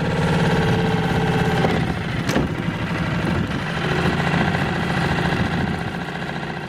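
Yamaha F5A four-stroke outboard motor running steadily at idle. A single sharp click a little over two seconds in.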